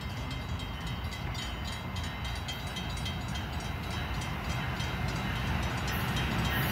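Brightline passenger train with Siemens Charger diesel-electric locomotives approaching on the tracks, its rumble growing steadily louder.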